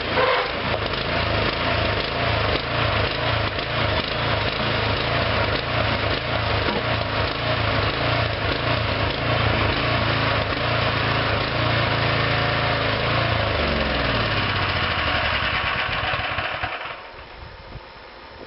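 Small engine of a homemade hydraulic backhoe running steadily with a throbbing beat, then winding down in pitch about three-quarters of the way through and stopping near the end.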